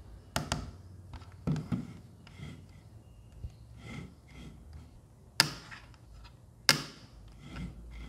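Handling of a small plastic gadget: a series of sharp clicks and light knocks, the two loudest about a second apart past the middle, between softer rustles.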